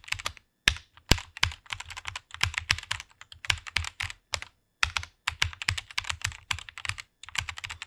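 Fast typing on a computer keyboard: rapid runs of key clicks in bursts, with short pauses between words or phrases.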